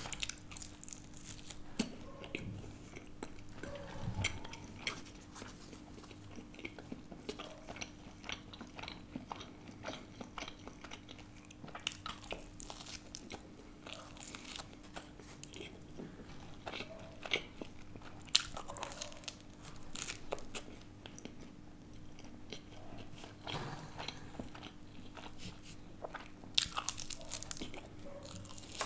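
Close-miked biting and chewing of thin-crust Margherita pizza, with irregular crisp crunches of the crust and wet mouth sounds.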